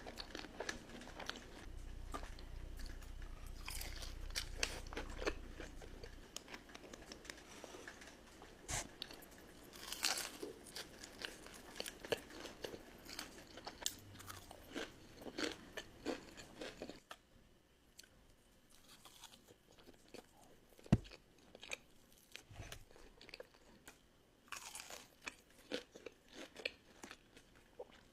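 Close-miked eating: repeated crunchy bites and chewing of crispy food, with crackling crunches. About two thirds of the way through the sound drops to quieter, sparser chewing, with one sharp click a few seconds later.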